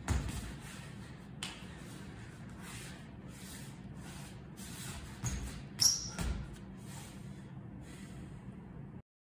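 Sneakers stepping, thumping and squeaking on a studio floor during a dance, over a steady room hum. A few heavy footfalls come around the start and between five and six and a half seconds in, the loudest just before six seconds with a sharp shoe squeak; the sound cuts off suddenly near the end.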